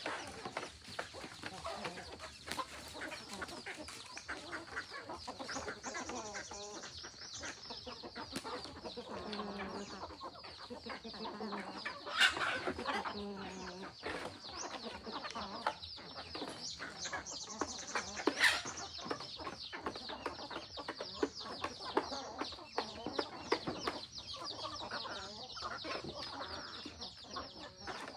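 Free-range chickens clucking, with many small clicks and taps and a constant high chirping behind them. Two louder sharp sounds stand out about midway.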